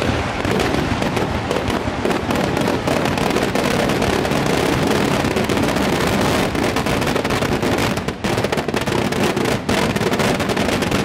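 Firecrackers packed into a burning Ravan effigy going off in a continuous, loud barrage of rapid cracks and bangs.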